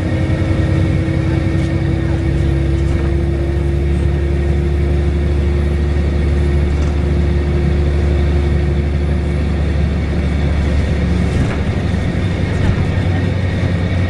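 Volvo B7RLE single-deck bus heard from inside the passenger saloon on the move: a steady low rumble of engine and drivetrain, with a faint whine that slowly rises in pitch and fades about ten seconds in. The low rumble eases a little about eleven and a half seconds in.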